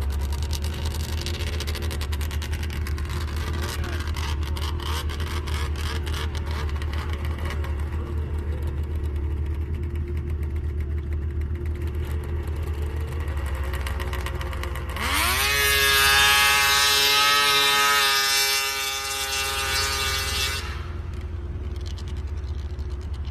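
Two-stroke triple snowmobile engine running at low revs with a rapid, crackly beat. About two-thirds of the way through it revs up sharply into a loud, high, steady wail held for about five seconds, then drops back off.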